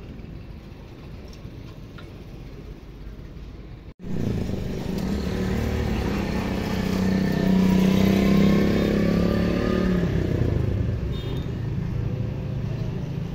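Quiet low background noise at first, then, after a cut, a motor vehicle engine running close by, swelling to its loudest about halfway through and easing off near the end.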